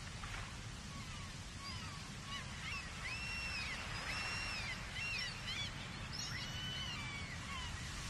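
Seagulls calling over and over, several calls overlapping, from about two seconds in until near the end. Beneath them runs the steady wash of ocean surf breaking below the cliffs.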